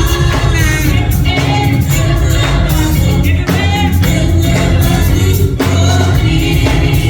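Gospel song with a singer over a band, with heavy bass and drums underneath.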